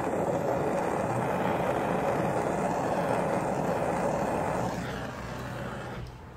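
Gas torch flame hissing steadily while it heats the tip of an electroformed copper cone on its lead former. The hiss weakens about five seconds in and cuts off about a second later as the torch is taken away.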